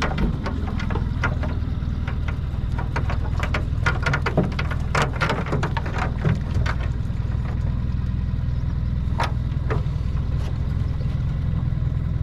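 Boat engine idling steadily, a low hum, with scattered clicks and knocks over it.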